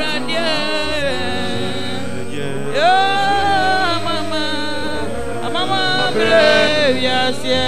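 Singing with musical accompaniment: a voice sings long, gliding notes over steady sustained backing notes.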